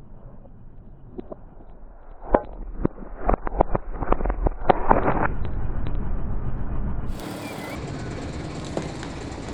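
A car's tyre rolling over something brittle: a rapid run of sharp cracks and crunches lasting about three seconds over the low rumble of the car. About seven seconds in it switches abruptly to a steady engine hum.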